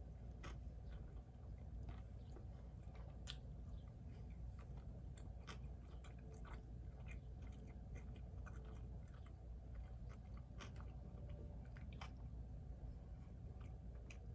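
A person chewing food, with scattered small wet mouth clicks throughout, over a low steady hum.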